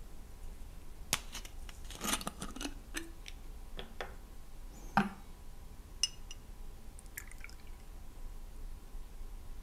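Scattered light knocks and clinks of a glass Campari bottle and a steel jigger being handled and set down on a wooden bar top, the loudest about five seconds in. A few small ticks follow as the bottle's screw cap is twisted off.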